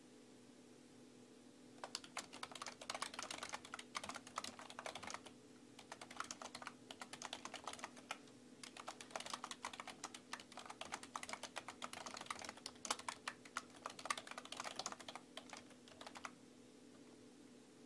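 Typing on a desktop computer keyboard: quick runs of key clicks in three spells, with short pauses about five and eight seconds in, over a faint steady hum.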